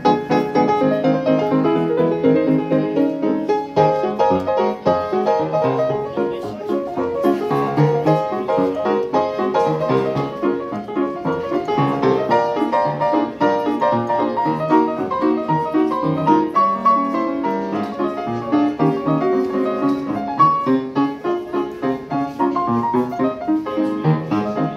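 Solo piano music played on a Feurich grand piano: a lively piece of quick, unbroken notes over a recurring bass line.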